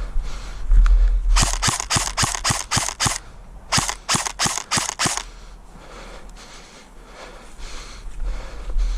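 ASG M15 airsoft electric gun firing two quick strings of shots, about seven then about five after a short pause, at roughly four shots a second.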